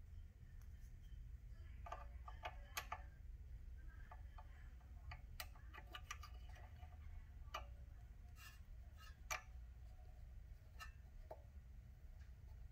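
Faint, irregular metallic clicks and taps as a key is pushed into and seated in the jaw clamp of an SEC-E9 key-cutting machine. The sharpest click comes a little past two-thirds of the way through, over a low steady hum.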